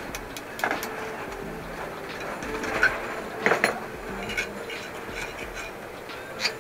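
Metal clinks and scrapes of a hand tool worked against the end cover and shaft of a small electric water pump motor during bearing replacement. Scattered sharp clicks, the loudest a cluster around the middle.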